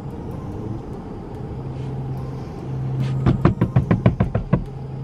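A quick run of about a dozen sharp knocks, some eight a second, over the steady low hum of a car's cabin with the engine running.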